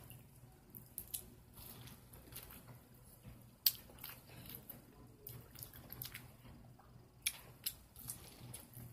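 A person eating corn on the cob: bites into the kernels and chewing, heard as faint wet smacks and sharp little clicks, the loudest a little past halfway and two more near the end.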